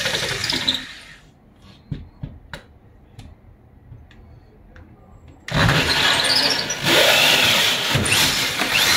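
Power drill boring the pipe hole through the wall for a split air conditioner: it starts abruptly about two thirds of the way in and runs loudly to the end. Before it, a loud noise dies away in the first second, then a few light clicks and knocks of handling.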